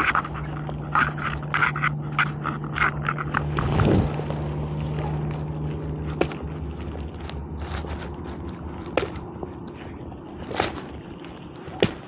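Plastic bag crinkling and rubbing close against the microphone: a dense run of crackles in the first few seconds, then scattered crackles. A low steady hum runs underneath for about the first six seconds.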